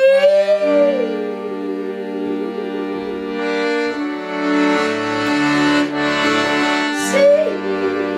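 Instrumental passage of a song: long held chords on a reed-like instrument between sung lines, with the last sung note trailing off about a second in.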